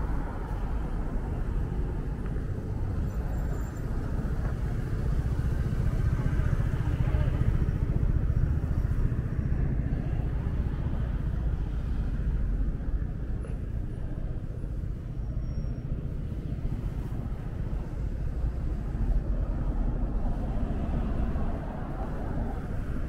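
Steady low rumble of moving vehicles, with no single sharp event standing out.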